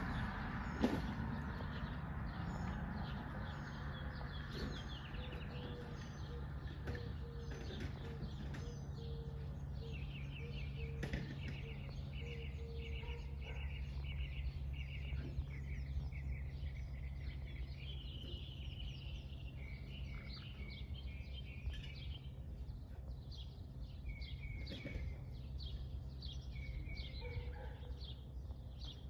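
Small songbirds chirping in quick runs of short notes over a steady low hum, with a single sharp click about a second in.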